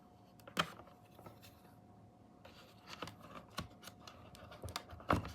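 Handling noise: scattered clicks and scraping of objects being moved about on a desk. One sharp click comes about half a second in, and denser clicking and rubbing follow from about halfway through, loudest near the end. A faint steady whine sits underneath.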